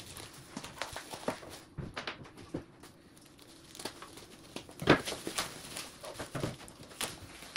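Plastic packaging rustling and crinkling as it is pulled off a portable EV charger's control unit, with scattered small clicks and knocks, the sharpest about five seconds in.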